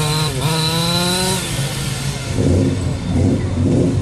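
Small engine of a gas-powered RC car revving: the pitch dips briefly and climbs back just after the start, holds high, then turns rougher and lower about a second and a half in.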